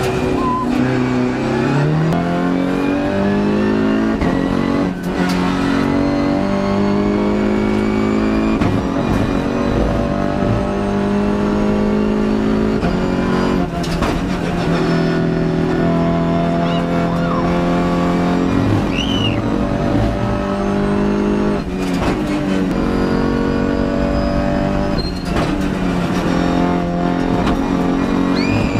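Volkswagen Golf GTI TCR race car's turbocharged four-cylinder engine heard from inside the cabin at racing speed. It climbs in pitch through each gear and drops sharply at quick gearshifts, several times.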